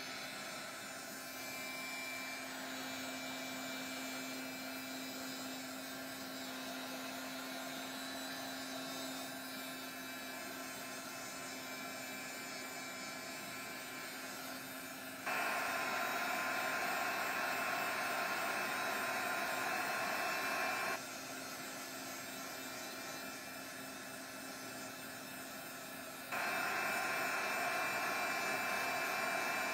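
Hand-held craft heat gun blowing steadily while it dries stencilled white primer paste. It gets abruptly louder for several seconds about halfway through and again near the end.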